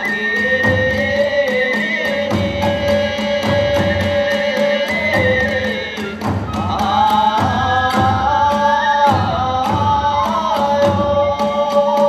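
Kagura hayashi music: long held melody notes over regular taiko drum beats and a rapid, even clashing of tebyoshi hand cymbals.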